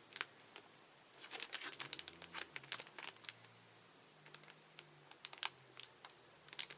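Plastic packaging crinkling in irregular bursts of short crackles as the kit's parts are handled.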